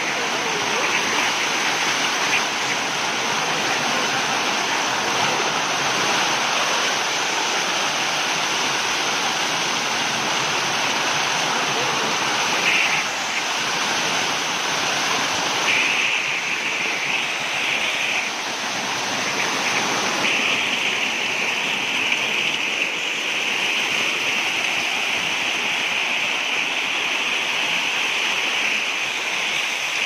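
Rainwater rushing and splashing down a flight of stone steps in a steady torrent, turning hissier about two-thirds of the way through.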